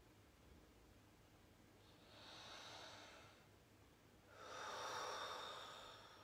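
A person breathing deeply, two slow audible breaths, the second louder and longer than the first.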